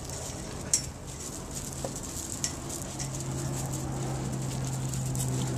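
Puppies' paws scrabbling and crunching on gravel, with scattered small clicks and taps and one sharper click a little under a second in. A steady low hum runs underneath and grows louder from about three seconds in.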